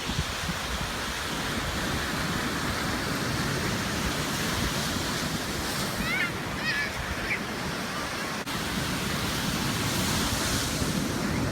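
Ocean surf washing onto a beach, a steady rush of waves with wind on the microphone. A few short, high chirp-like calls come about six to seven seconds in.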